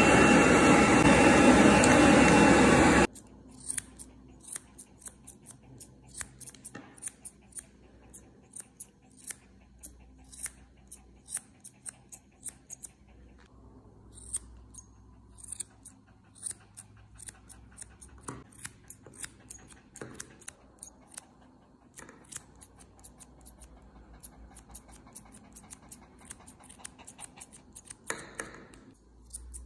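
A pet grooming dryer blows loudly and evenly for about the first three seconds, then cuts off. After that come grooming scissors snipping a Maltese's paw fur, in many short, crisp snips, often several in quick succession.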